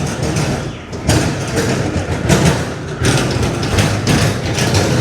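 Engine dresser being sprayed onto the engine, a series of short hissing bursts about every half second to second, over a steady low rumble.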